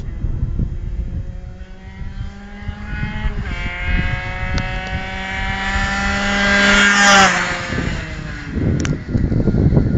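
Gilardoni-tuned Aprilia RS two-stroke motorcycle going by at full throttle. The engine's high buzzing note grows louder to a peak about seven seconds in, then drops in pitch and fades as it rides away.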